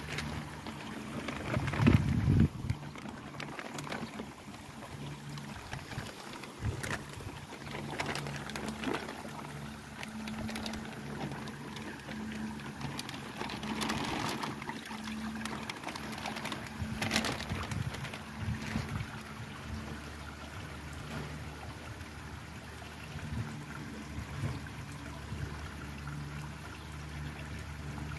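Water trickling steadily in a garden koi pond, under a steady low hum. There is a brief louder low disturbance about two seconds in, while the plastic fish bag is in the water.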